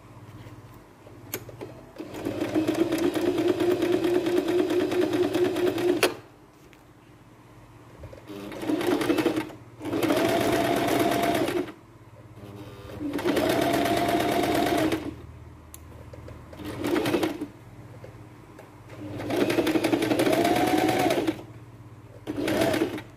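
Electric sewing machine stitching a seam along the edge of the fabric, running in bursts of a few seconds and stopping in between, its motor pitch climbing as it speeds up at the start of several runs.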